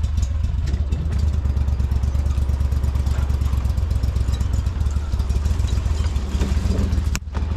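ProDrive surface-drive mud motor running steadily with a deep, even hum as it pushes the boat along, with a brief break near the end.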